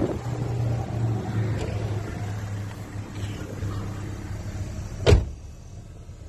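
Pickup truck door shutting with one loud thump about five seconds in, after a steady low hum; everything is quieter after the door closes.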